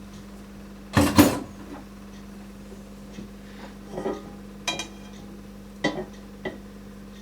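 Frying pan and cutlery clattering: a loud double clank about a second in, then several lighter clinks and knocks.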